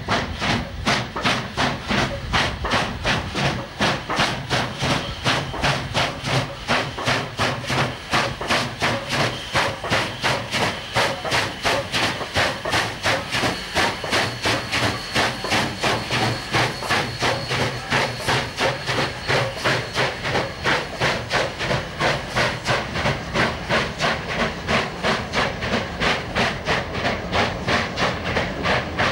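Union Pacific Challenger, a 4-6-6-4 articulated steam locomotive, working hard with a train: its exhaust chuffs in a fast, even beat over a steady steam hiss.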